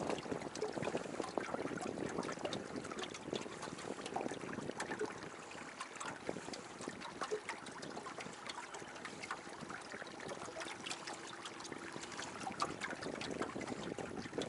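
Water lapping and splashing against the hull of a small fishing boat moving across a lake, with many small irregular splashes.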